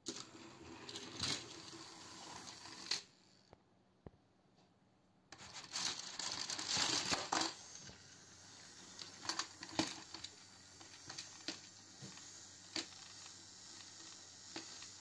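Battery-powered plastic toy trains pushing against each other on a sheet of paper: small motors whirring, with sharp plastic clacks and paper crinkling. The sound comes in several sections that start and stop abruptly, the loudest, busiest one about halfway through.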